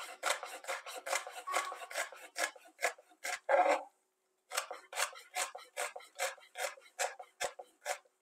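Knife dicing a green pepper on a cutting board: short, even chopping strokes, about three or four a second, with a brief pause about four seconds in.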